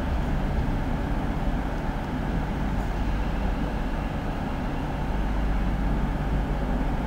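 London Midland Class 350 Desiro electric multiple unit pulling out of the platform: a steady low rumble of the train moving away under the station roof.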